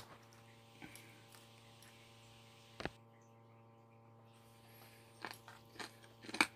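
Faint, steady electrical hum with a few soft clicks of spoon and fork on the plate while a bite of rice and fried eggplant omelette is scooped up and eaten: one click about three seconds in, then several close together near the end.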